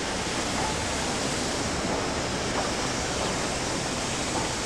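Steady, even hiss of steam escaping from a standing BR Standard Class 4 4-6-0 steam locomotive.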